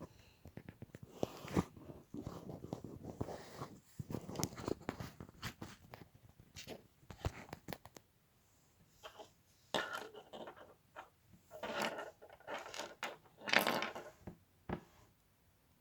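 LEGO plastic pieces being handled and fitted: irregular clicking, clattering and rustling in bursts, with a short pause about halfway through.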